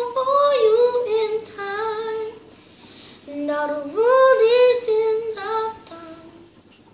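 A child singing solo, two phrases of a pop-song melody with a short breath between them, and no instrument heard in the gaps.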